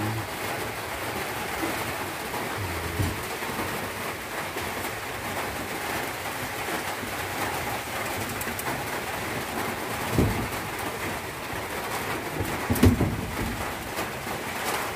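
A steady hiss with a bird cooing, and two soft knocks about ten and thirteen seconds in as the mushrooms are handled.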